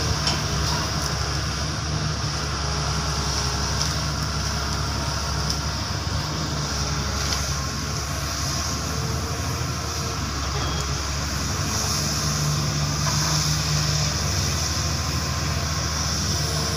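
Long-arm hydraulic excavator's diesel engine running steadily while the machine digs and lifts a bucket load out of a ditch. The engine note swells a little about three-quarters of the way through.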